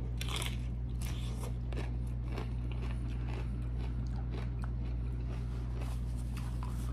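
Crisp fried corn tostada topped with shrimp ceviche being bitten and chewed close to the microphone: a bite at the start, then a run of repeated crunches, over a low steady hum.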